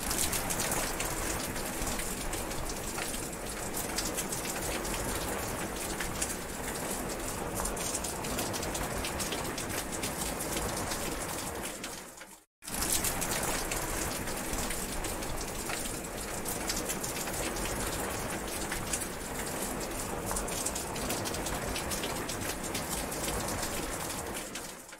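Steady rain falling, a dense hiss dotted with the ticks of single drops striking. About halfway through it fades out to a moment of silence and then comes straight back.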